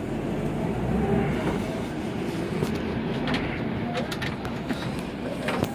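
Safari bus running, heard from inside the cabin: a steady low rumble with rattles and several sharp clicks in the second half.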